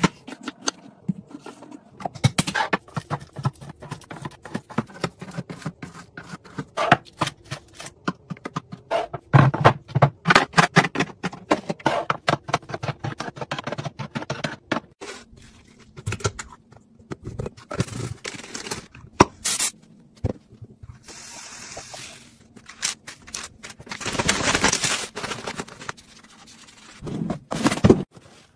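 A run of close-up taps, clicks and scrapes from food and containers being handled: a knife cutting strawberries on a wooden board, eggs set one by one into a clear plastic egg bin, and cardboard boxes slid into a drawer organizer. There is a short stretch of steady hiss past the middle.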